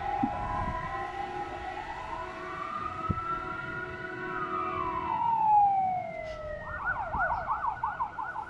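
Fire engine siren sounding: a slow wail rises and falls over several seconds over some steady tones, then about seven seconds in it switches to a fast yelp.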